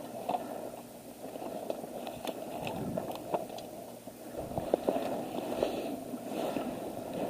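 Quiet outdoor background with faint rustling and a few scattered small clicks and taps, like a player moving and handling gear.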